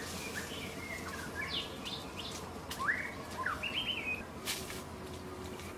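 Small forest birds chirping: a string of short whistled chirps that sweep up and down, loudest about three seconds in. A couple of brief rustles of dry leaf litter come later on.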